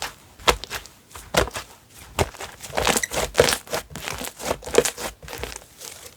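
Slime being squished, pressed and stretched by hand, making irregular sharp popping and crackling clicks.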